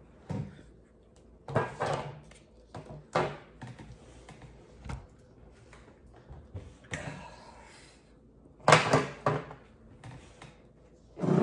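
Scattered knocks, thuds and rustling of items being picked up, moved around and set down, with the loudest knocks coming together near the end.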